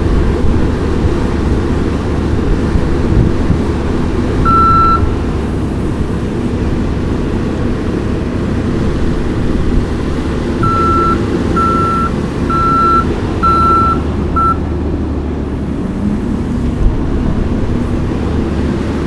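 Kioti skid steer's diesel engine running steadily while its backup alarm beeps: once about a quarter of the way in, then five times in a row past the middle, the last beep cut short.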